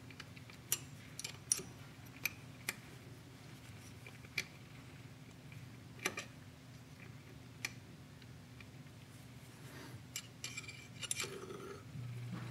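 Small metal hand tools clicking and tapping on a two-stroke motorcycle engine's crankcase while it is being taken apart: about a dozen sharp separate clicks, scattered and irregular. A low steady hum comes in near the end.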